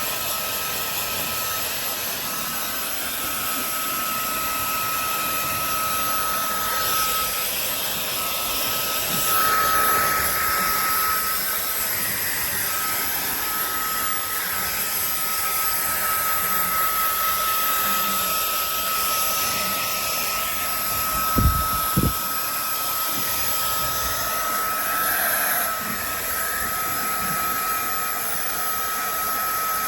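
Hair dryer blowing steadily, a whooshing hiss with a constant high whine. Two short dull thumps come about two-thirds of the way through.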